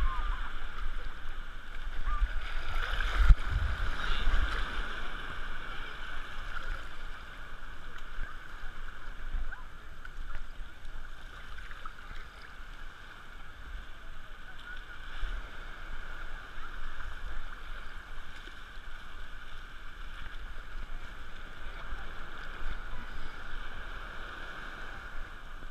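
Shallow sea water sloshing and lapping around a camera held right at the waterline, with uneven low thumps of water against it. There is a louder splash about three seconds in.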